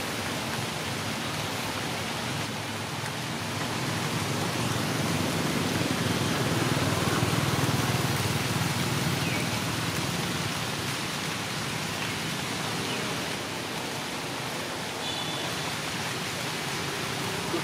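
Steady outdoor hiss, with a motorbike passing close by: a low engine sound swells and fades between about four and ten seconds in.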